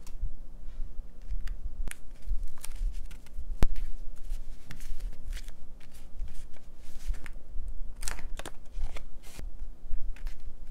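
Paper and a sticker being handled at close range: scattered small clicks, rustles and crinkles, with one sharp click about three and a half seconds in, over a faint low hum.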